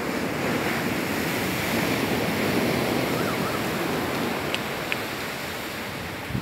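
Surf of a rough sea breaking on the beach: a steady rushing noise.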